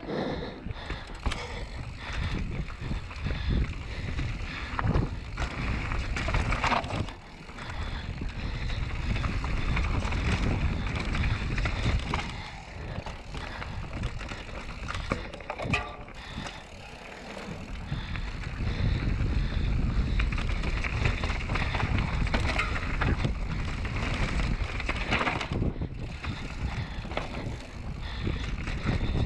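Commencal Meta V4.2 enduro mountain bike descending dirt singletrack at speed: tyres rolling and scrubbing over packed dirt and roots, with a constant low rumble and many small rattling clicks from the bike, easing off briefly twice.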